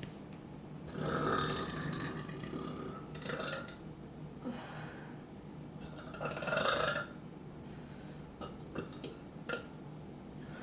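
A woman burping: a long burp beginning about a second in, a short one right after it, and a second loud burp about six seconds in. A few short mouth clicks follow near the end.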